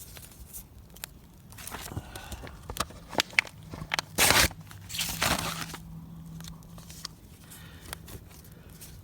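Paper being crumpled and torn and fed onto a small kindling fire, with scattered crackles and snaps and two louder rushing bursts about four and five seconds in.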